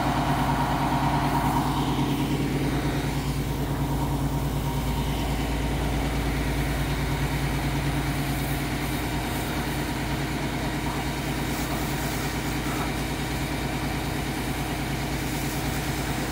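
Large vehicle engine idling steadily, a low even hum.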